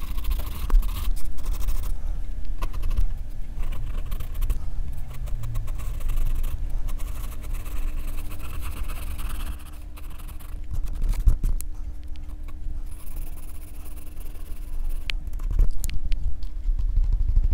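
Graphite pencil scratching across drawing paper in quick shading strokes, with a steady low hum underneath.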